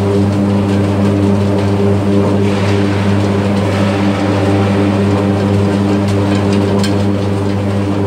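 Electric arc furnace running, its graphite electrodes arcing into the charge: a loud, steady, deep buzzing hum with irregular crackles over it, a few sharp cracks near the end.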